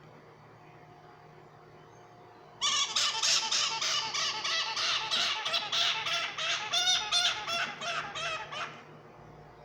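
Pet parrot squawking: a rapid run of harsh, repeated calls, several a second, lasting about six seconds. It starts suddenly about two and a half seconds in, after near-quiet room tone.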